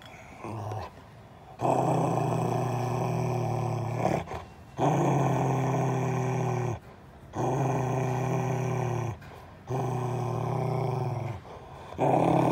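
Large black-and-tan dog growling: a run of long, low growls of about two seconds each, broken by short pauses for breath. The growling is the dog guarding its new ball as a hand reaches in at its mouth.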